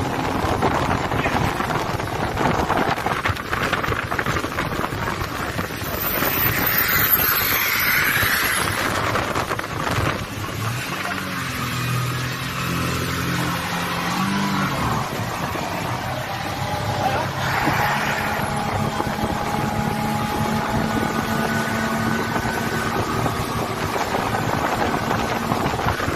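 Speedboat engine running steadily at speed, with wind buffeting the microphone.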